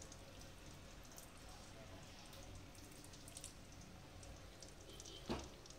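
Faint sizzling with scattered fine crackles from marinated chicken pieces frying in hot oil and butter in a kadhai. A single short knock near the end.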